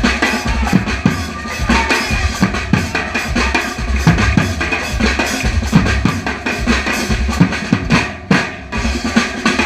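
Drum-led music: several drums beating a fast, steady rhythm, with a short break a little before the end.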